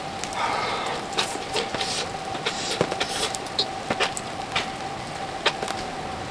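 Small fire crackling: scattered, irregular sharp pops over a steady hiss, with a faint steady hum underneath.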